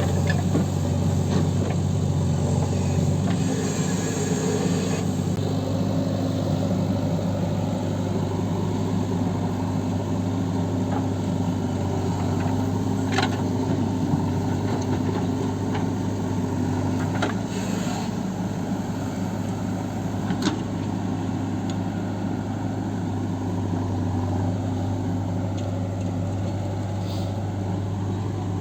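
Heavy diesel engine running steadily, with a few sharp knocks along the way.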